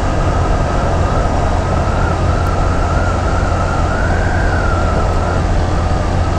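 Honda Grom 125's single-cylinder engine, geared with a 14-tooth front sprocket, running at a steady cruise of about 30 mph. Heavy wind rumble on the microphone covers it, and a steady high whine wavers slightly in pitch.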